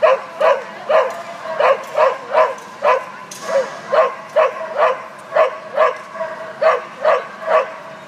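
A dog barking over and over in a steady rhythm, about two barks a second, each bark at much the same pitch.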